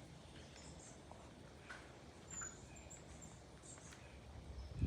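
Faint outdoor ambience with a few brief, high-pitched chirps, and a single low thump near the end.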